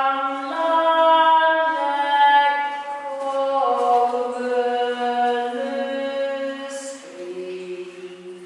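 One voice singing unaccompanied in the glacier's ice chapel: slow, long-held notes that step up and down, each fading out under the next as it echoes off the ice walls.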